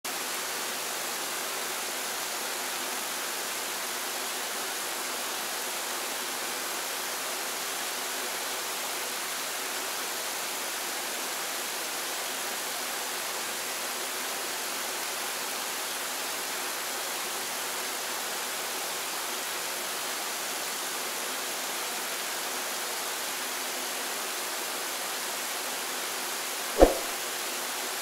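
Skógafoss waterfall: a steady, even rush of falling water. Near the end a single brief, loud, sharp knock cuts in.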